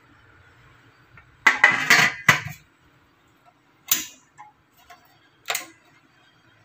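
Stainless steel lid of a Tatung electric rice cooker set onto the pot with a short metallic clatter, then a sharp click as the cooker's switch lever is pressed down to start cooking, and another click about a second and a half later.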